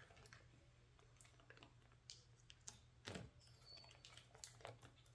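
Near silence with faint, scattered clicks and crinkles from a vinyl decal's backing paper being peeled and rubbed down onto a car body, over a low steady hum.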